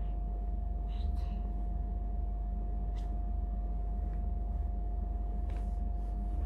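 Steady low machine hum with a constant mid-pitched whine running under it, and a few faint clicks.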